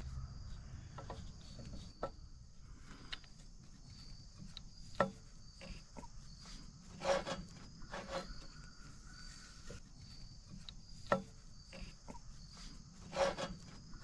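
Insects chirring steadily in the background, with a handful of sharp metallic clinks and taps from a wrench working the hydraulic valve fittings of a log splitter.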